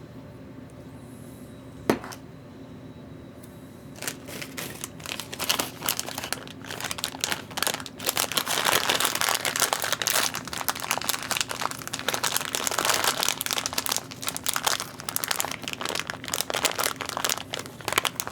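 Plastic crinkling and crackling from LiPo battery packs and their wrapping being handled and pulled apart. A single sharp click comes about two seconds in, and the dense crinkling starts a couple of seconds later.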